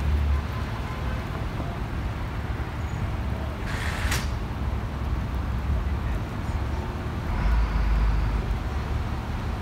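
Steady low rumble of idling and passing heavy vehicles, with a short hiss of air about four seconds in and the rumble swelling briefly near the end.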